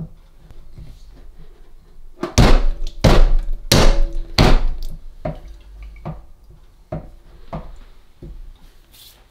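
Chrome kitchen tap lever handle being knocked down onto its ceramic valve spindle with the palm of the hand: a run of sharp knocks, loudest and quickest about two to five seconds in, then lighter single knocks every second or so.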